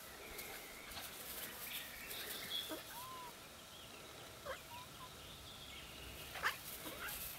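Quiet outdoor ambience with a few faint, short animal calls, and a brief sharp call near the end as the loudest sound.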